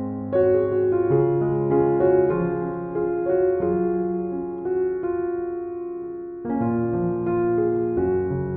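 Slow, soft background piano music: sustained chords and melody notes, with a brief fade near the middle before new chords come in.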